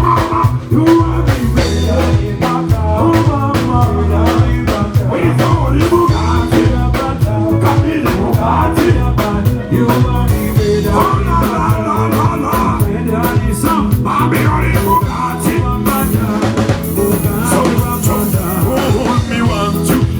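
Band music played loud over a PA, with a drum kit keeping a steady beat under bass and melodic instruments, and no clear lead vocal.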